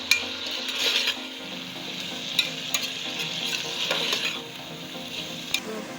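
A spoon stirring chicken and vegetables in a pot of bubbling, sizzling sauce, with a hiss that swells and eases and a few sharp clicks of the spoon against the pot.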